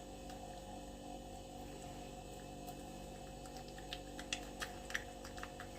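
Faint, steady electrical hum. In the second half comes an irregular run of small, light clicks, about two a second, as a cat eats egg from a dish.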